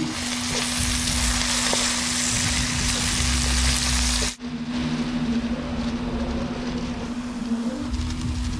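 Onions and mushrooms sizzling in hot oil in a frying pan. The sizzle is loud for about four seconds, then drops abruptly to a quieter sizzle with light crackling, over a steady low hum.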